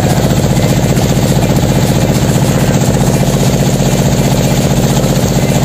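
Small wooden motorboat's engine running steadily at cruising speed, a loud, even drone with a fast regular beat.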